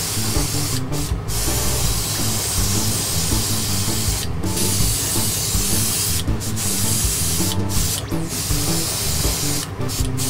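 Airbrush spraying paint with a steady hiss that stops briefly several times as the trigger is let off.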